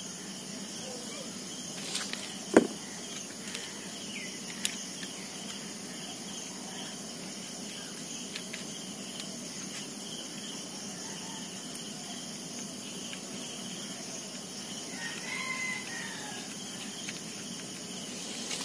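Steady chirring of insects such as crickets, with a rooster crowing faintly about fifteen seconds in. A single sharp click about two and a half seconds in is the loudest sound.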